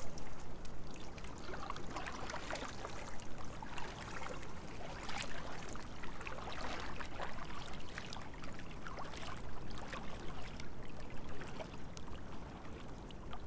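Lake water splashing and trickling around inflatable kayaks as they are paddled, with irregular small splashes from the paddle strokes.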